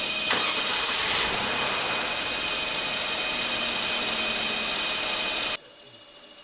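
Loud, steady machine noise with a strong hiss. It starts and stops abruptly, cutting off about five and a half seconds in.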